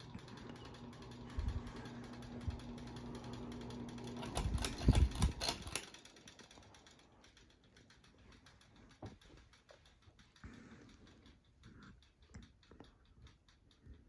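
Bahama Hugger 52-inch ceiling fan running with a steady motor hum that stops about four seconds in, amid a loud burst of clicks and rumble. Afterwards the spinning fan gives faint, regular ticks.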